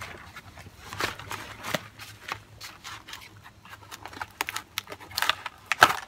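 Foam tube padding and packaging being handled and pulled off a new bike: scattered short clicks and rustles, with a cluster of louder ones near the end.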